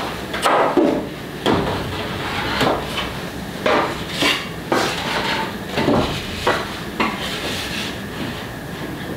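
A series of irregular knocks and clatters, about ten in the first seven seconds, then fewer toward the end.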